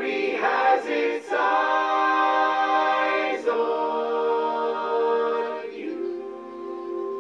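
Choir singing long held chords without words breaking between them, moving to a new chord about a second in, again around the middle, and once more near the end.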